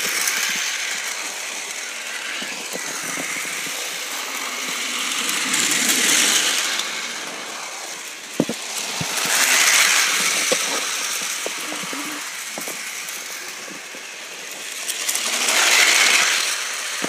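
Battery-powered toy bullet train running: its small motor and gears whir steadily, swelling louder three times, with scattered light clicks and rattles.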